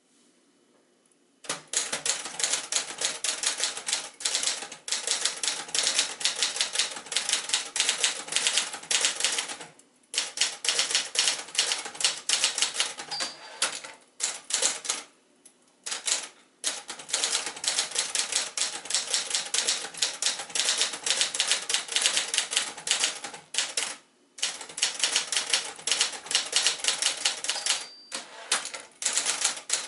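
1966 Adler J2 portable manual typewriter being typed on: quick runs of sharp keystroke clacks, several a second, broken by a few short pauses.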